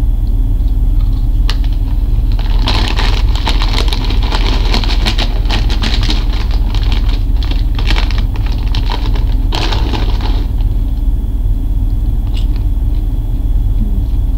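Popcorn being eaten from a snack bag: a stretch of dense crackling and crunching from about two and a half to ten and a half seconds in, over a steady low hum.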